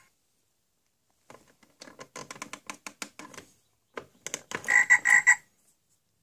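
Plastic clicking of a Fisher-Price pop-up toy's buttons and doors being pushed by hand, a rapid run of clicks. About four seconds in, a frog-like croak sounds in three loud pulses along with more clicking.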